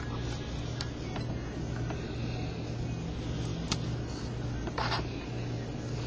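Handling noise: a few light clicks and a short rustle just before five seconds in, over a steady low hum.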